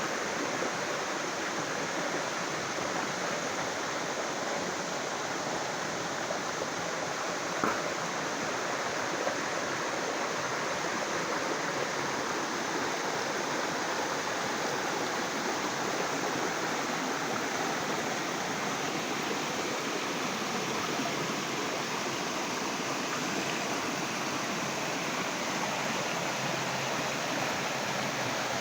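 Flowing water rushing steadily with an even hiss, as of a stream or small waterfall, with a single short click about eight seconds in.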